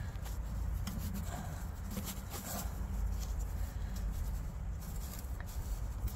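Soft rubbing and scraping as a gloved hand pushes a rubber rear main seal half around the crankshaft and into its groove in the engine block, with a few faint ticks, over a steady low hum.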